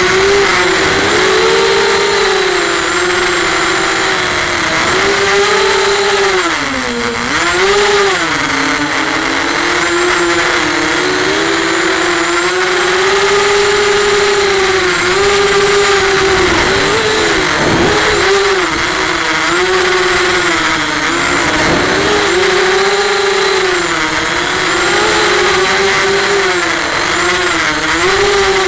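FPV racing quadcopter's electric motors and propellers whining, heard from its onboard camera, with a steady hiss of air. The pitch keeps swooping down and back up as the throttle changes, dipping deepest about seven seconds in.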